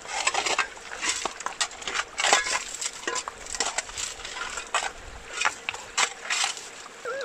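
Loose stones being lifted and moved by hand, knocking and clattering against one another in irregular clacks with scraping and rustling between them.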